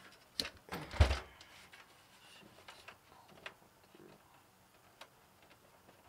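Cables and a plastic connector being fed through the back of a computer case, rubbing and knocking against the case: a sharp knock about a second in, then a few faint clicks.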